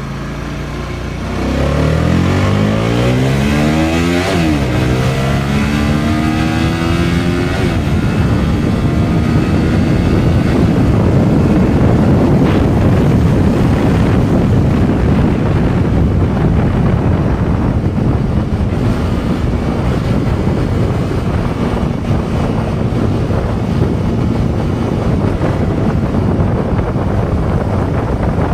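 Stock motorcycle engine pulling hard through the gears, its pitch rising and dropping back at two shifts in the first eight seconds. After that, steady wind noise on the microphone at speed covers the quiet stock exhaust, with only a faint engine tone left underneath.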